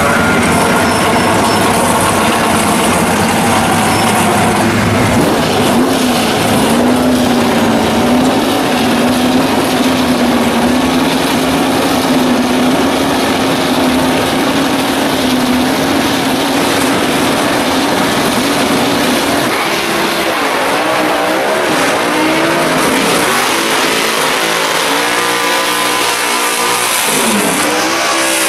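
A 1968 Camaro drag car's engine running loud at a steady, slightly wavering pitch, then revved up and down repeatedly through the last third as the car does a burnout with tyre smoke.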